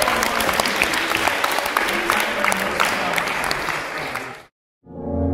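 A small crowd applauding, with a few voices mixed in, dying away about four seconds in. After a short gap, music with a low sustained tone starts near the end.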